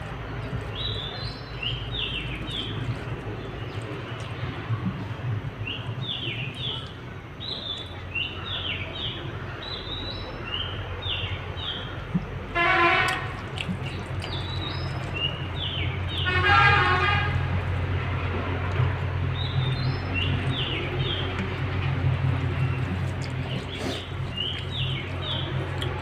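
Small birds chirping repeatedly in short clusters over a steady low hum, with a horn tooting twice, briefly about halfway through and again a few seconds later.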